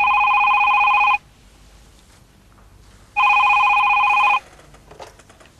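Telephone ringing twice, each ring a steady trilling tone about a second long, the two rings about two seconds apart. A few faint clicks near the end.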